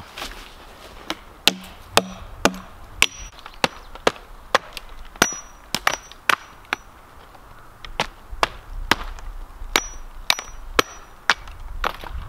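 Camp axe chopping into a log: repeated sharp strikes about two a second, with a short pause around the middle, some strikes leaving a brief high ring.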